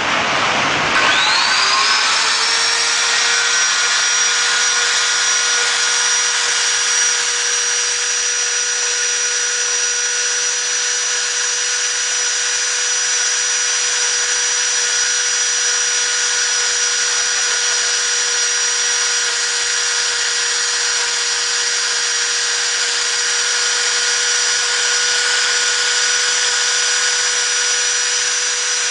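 Spindle motor of a Maruti CNC 200 PCB machine spinning up. Its whine rises in pitch over the first couple of seconds, then holds at full speed as a steady high whine with hiss.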